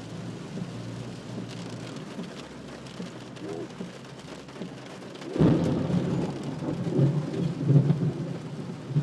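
Floodwater around a car, heard from inside the cabin: a steady rush of water and rain, then about five seconds in a sudden heavy rumbling surge as the car meets deeper water. The water is on the point of lifting the car and setting it floating.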